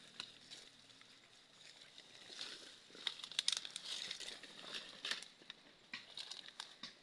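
Rustling and crackling of dry leaves, twigs and undergrowth as someone pushes through brush on foot, with a dense run of crackles in the middle.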